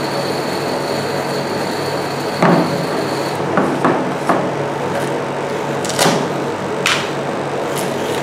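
Steady hum of a rolled-ice-cream machine's cold plate, with sharp knocks and clicks as a Nutella jar is set down on the steel plate and its lid unscrewed; the loudest knock comes about two and a half seconds in. Near the end comes a crinkle as the foil seal is peeled.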